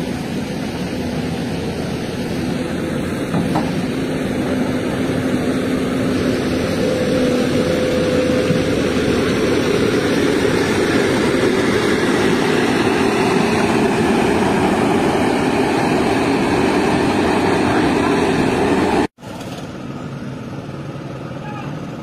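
Heavy diesel engines running hard under load as a trailer truck loaded with a concrete bridge girder strains through mud, pushed from behind by an excavator. The noise builds over the first several seconds, then cuts off suddenly near the end and gives way to quieter construction-site sound.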